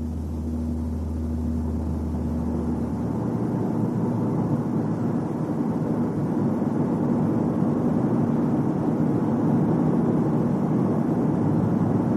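Car being driven, its running noise building steadily as it gathers speed, with a low hum in it.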